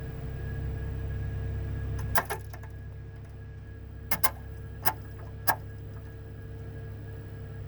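The brake system of a Cessna Citation CJ3 jet gives a series of sharp clicks over a steady hum: a double click about two seconds in, as the low hum drops, then four more clicks over the next few seconds. These are the abnormal brake noises under investigation.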